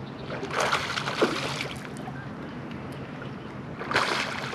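A hooked bass splashing at the water's surface twice, about a second in and again near the end, over a steady low hum.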